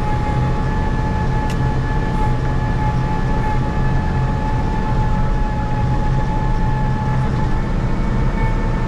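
Engine running steadily at constant speed: a low hum with a steady high whine over it, unchanging throughout.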